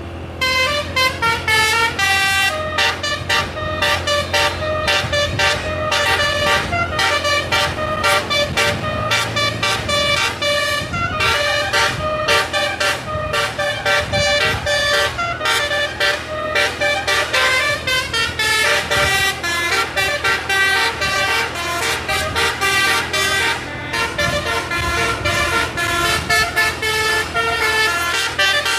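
Basuri telolet multi-tone musical horn playing a quick tune of short notes, with a vehicle engine running steadily underneath.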